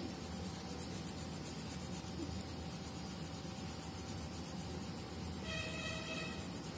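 Green colored pencil rubbing steadily back and forth on paper, shading in a coloring book. A brief faint pitched tone sounds about five and a half seconds in.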